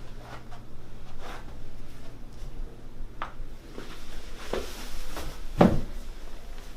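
A few soft knocks and rustles of handling and movement on a chiropractic treatment table, with one louder thump near the end.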